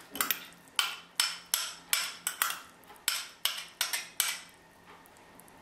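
Metal teaspoon tapping against a small glass dish, about a dozen sharp clinks at roughly three a second, knocking chopped parsley leaves off into the pot. The clinks stop a little after four seconds in.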